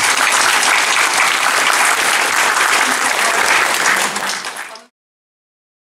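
Audience applauding steadily, then cut off suddenly near the end.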